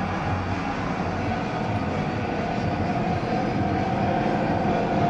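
Auto race motorcycles' 600 cc twin-cylinder engines running as the bikes circle the oval, a steady drone with a faint tone that grows a little stronger toward the end.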